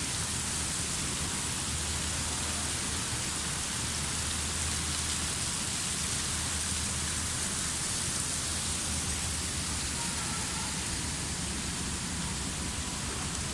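Man-made waterfall: a steady rush and splash of falling water.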